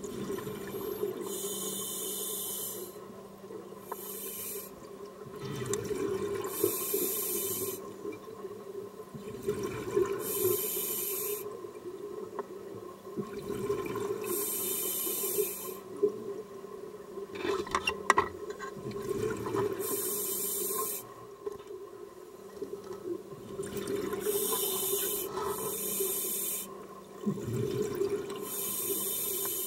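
Scuba diver breathing through a regulator underwater: a hiss on each inhalation every three to four seconds, alternating with the rumble of exhaled bubbles, over a steady low hum.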